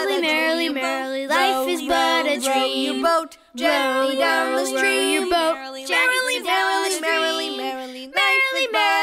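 Child and female voices singing a nursery-rhyme song, with one short pause about three and a half seconds in.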